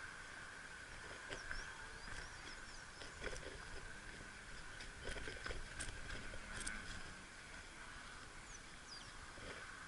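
Faint outdoor ambience: a steady high hum with a few short chirps over it and scattered light clicks and knocks, a little busier in the middle.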